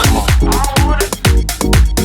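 Electronic dance music with a steady, fast four-on-the-floor kick drum and synth chords.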